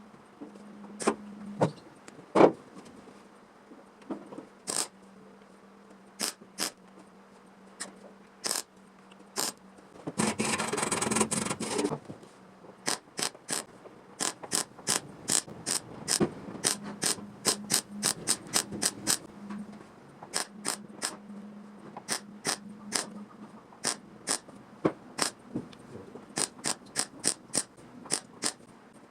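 A series of sharp mechanical clicks, sparse at first and then about two a second from roughly halfway through, with a two-second burst of hiss about ten seconds in.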